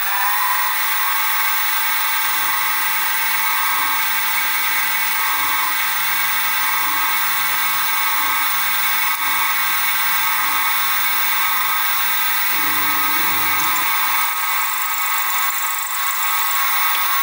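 Sieg SX2P mini mill spindle running at high speed with a steady high-pitched whine while a 3 mm end mill cuts a notch into the edge of a small gland nut on a rotary table.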